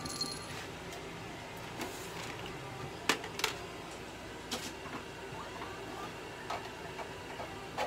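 Scattered light clicks and knocks of handling, with two sharper knocks about three seconds in, over a faint low hum that stops about three seconds in.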